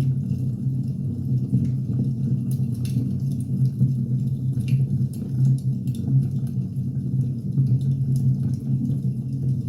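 Firewood burning: scattered sharp crackles and pops over a steady low rumble.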